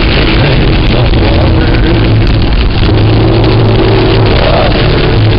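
Heavy rain mixed with hail pelting a car's roof and windshield, heard from inside the moving car as a loud, steady wash of noise with a few sharp ticks, over a steady drone of engine and tyres.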